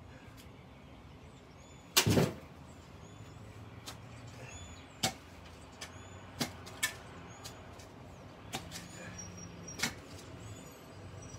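Long-handled digging tool stabbing down into the soil of a mulched bed: one loud strike about two seconds in, then several lighter chops spread through the rest.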